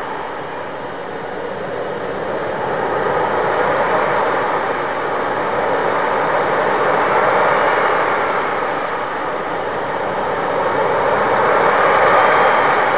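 RC jet model's turbine engine running steadily at idle: a loud, even rushing noise that swells and eases slightly a few times, with a faint whine gliding through it.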